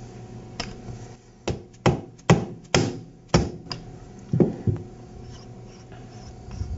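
Steel parts and tools clinking and tapping together as they are handled: a run of about nine sharp metal knocks, some with a brief ring, ending about five seconds in.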